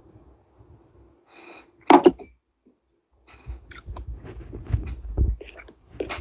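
Handling noise close to a phone's microphone: a single sharp knock about two seconds in, then a few seconds of clicks, bumps and low rumbling.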